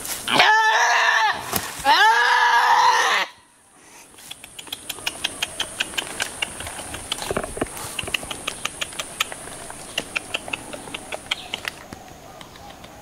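Goat bleating twice, two long wavering calls. After them come a run of faint, irregular clicks and a thin, steady high whine that stops near the end.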